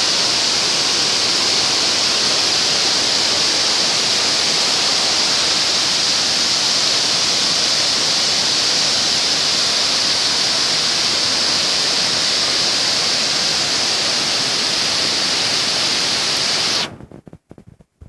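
Steady rush of a waterfall's cascades, an even hissing roar with no pitch to it. It cuts off abruptly about a second before the end.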